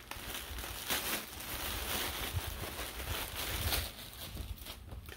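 Crinkling of a clear plastic poly bag and rustling of fabric as a bagged children's clothing set is pulled out and handled, with a few sharper crackles.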